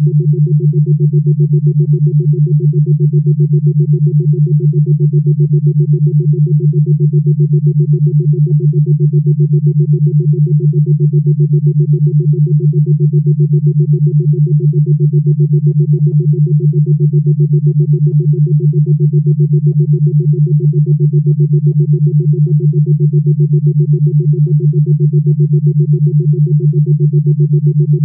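Synthesized drone of two steady low tones, pulsing rapidly and evenly without change.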